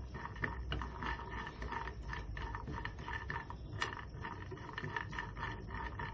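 Walnut halves being stirred with a spatula in a dry nonstick pan, dry-roasting with no oil: a steady run of quick rattling scrapes, several a second.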